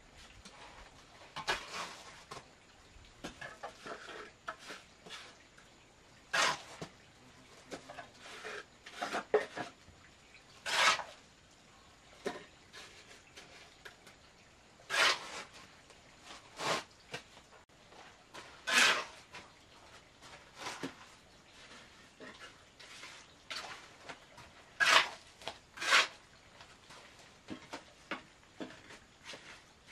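Steel trowel scraping and knocking on wet mortar and concrete blocks: short, separate scrapes every one to four seconds, some much louder than others.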